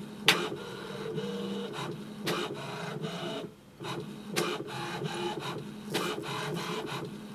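HP Tango inkjet printer printing a printhead alignment page. Its print mechanism whirs steadily, with a sharp click about every two seconds and a brief lull about halfway through.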